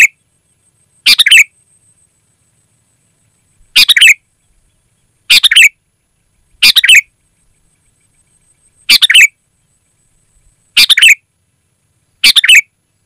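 Sooty-headed bulbul (kutilang) calling loudly and clearly: seven short phrases, each well under half a second, spaced one to two and a half seconds apart.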